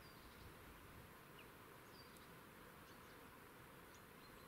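Near silence: faint outdoor hiss with a few faint, short, high bird chirps scattered through it.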